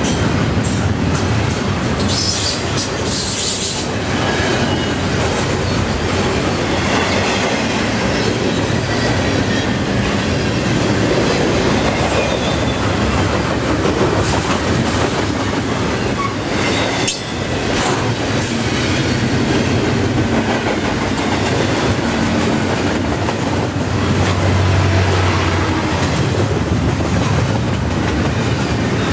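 Double-stack intermodal freight train's well cars rolling past close by: a loud, steady rumble of steel wheels on rail with clickety-clack over the rail joints.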